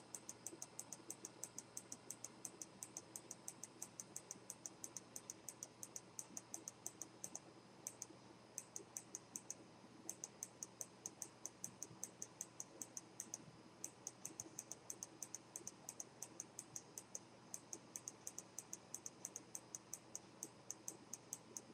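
Faint, steady clicking of a computer mouse scroll wheel, about four or five clicks a second with a few short pauses, as a document is scrolled down.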